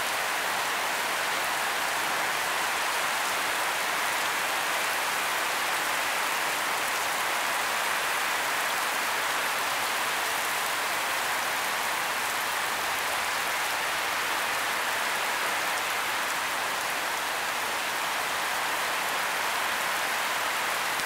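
Torrential rain falling hard on a paved street, a dense, steady hiss that never lets up.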